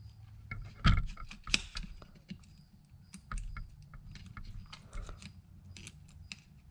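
Small clicks and rustles of hands handling insulated wires and plastic plug connectors around an electric skateboard's main circuit board, with a couple of louder knocks about a second in.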